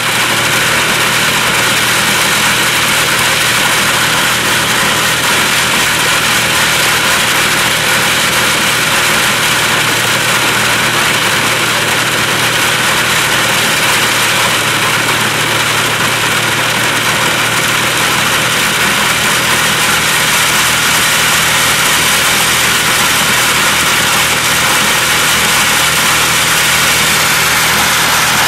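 Farm tractor engine running steadily at constant speed, a continuous drone with a steady rushing hiss over it.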